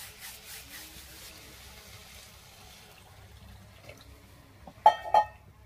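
Water poured from a steel tumbler into a metal kadhai of cooking curry, a splashing pour that fades away over the first few seconds. Two sharp clinks near the end are the loudest sounds.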